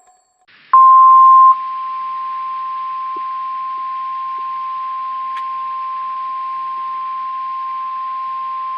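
NOAA Weather Radio 1050 Hz warning alarm tone: a single steady high beep that starts under a second in and holds for about nine seconds over faint radio hiss, louder for its first second or so. It signals that a weather warning broadcast is about to follow.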